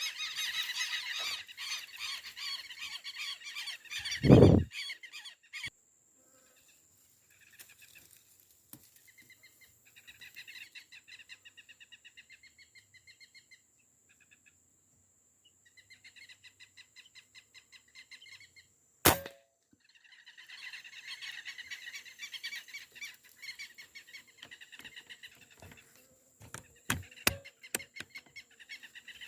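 A flock of whistling ducks (paturis) calling with repeated high whistles and chatter, in stretches that stop and start. A loud low thump comes about 4 s in, and a single sharp crack of the Beeman 1336 PCP air rifle firing comes about 19 s in.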